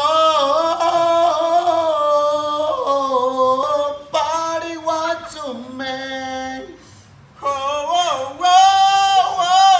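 Men singing a cappella in turn, holding long, high notes. The first voice stops about seven seconds in, and another takes over half a second later.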